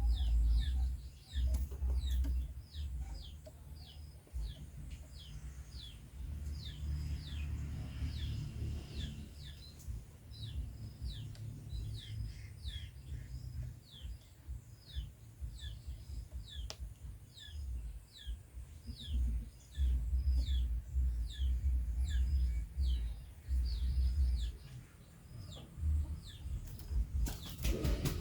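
A bird calling a long series of short, high, falling whistle notes, about three every two seconds, over a low rumbling noise, with a brief burst of noise near the end.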